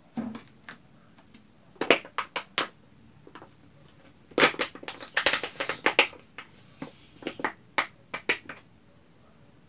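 Homemade glue slime being squeezed out of a plastic bottle: a string of short squelches and pops as it forces through the neck, coming in bunches about two seconds in, from four to six seconds with a longer crackly stretch, and again between seven and eight and a half seconds.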